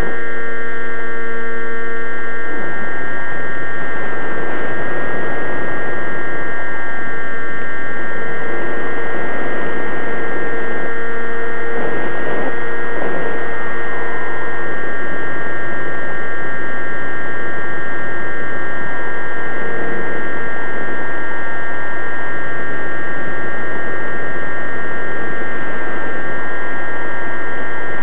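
Radio-controlled airplane's motor and propeller heard through the camera mounted on the plane: a loud, steady hum with several high whining tones that hold nearly the same pitch throughout, wavering briefly about halfway.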